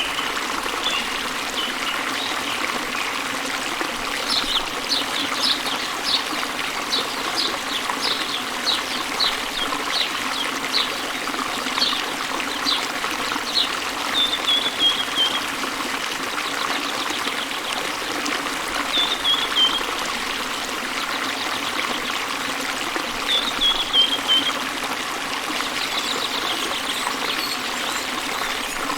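Small waterfall splashing into a river, a steady rush of running water. Over it a bird sings: a run of short high notes, about two a second, then a few brief falling trills spaced several seconds apart.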